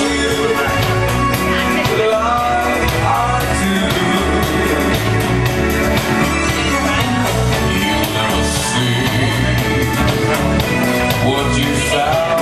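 Upbeat pop-rock style music with a vocal line and a steady beat, played over the sound system by the pool.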